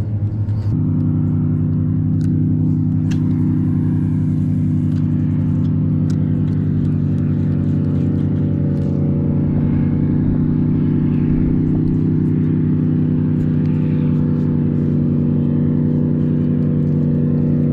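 Boat's outboard motor running under way. Its pitch steps up about a second in, then it runs at an even speed.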